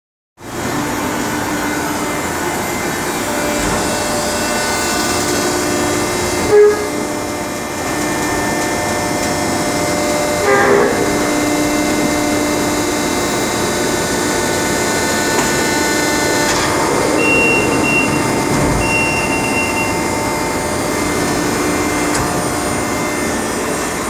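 American two-ram baler running while baling corrugated cardboard: a steady machine drone with many steady tones. A sharp knock comes about six and a half seconds in and a clunk around ten and a half seconds. Two short high tones sound near the end.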